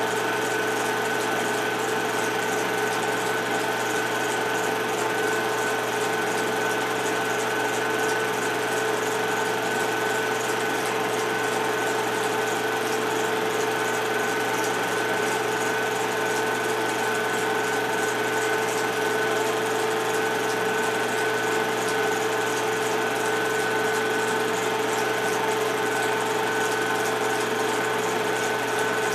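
Motion-picture projector running steadily: a constant mechanical whir with a steady hum and a fast, even flutter.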